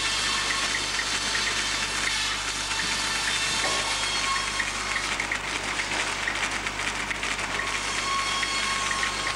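Old sawmill machinery running: electric motor, flat drive belts and pulleys turning together in a steady, even din.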